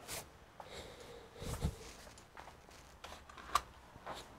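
Scattered light clicks, taps and rustles of small hard objects being handled and rummaged through, with a dull bump about a second and a half in and a sharper click about three and a half seconds in.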